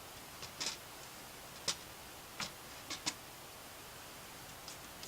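Scattered light clicks and taps, about six in the first three seconds and a faint one near the end, as a computer case's front panel is handled and fitted back on.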